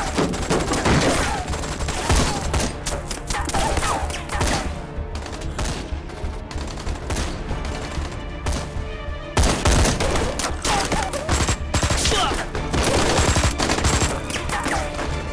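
Dense rifle gunfire, many shots overlapping in a continuous exchange of fire. It thins out in the middle and comes back heavier a little past halfway.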